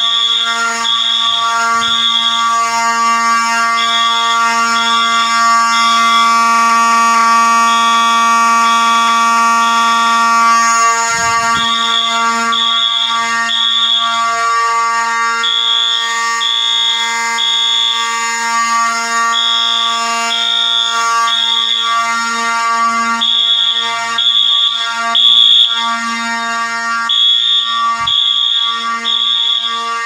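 Wheelock fire alarm horns sounding together. A steady electronic horn tone runs under a high beeping horn in the temporal-three evacuation pattern: three short blasts, then a pause, repeating about every four seconds.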